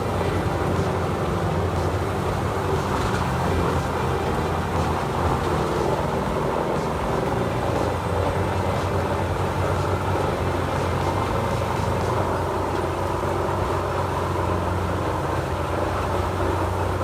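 Heavy diesel machinery engine running steadily under load, with a deep even drone and faint rattles and ticks.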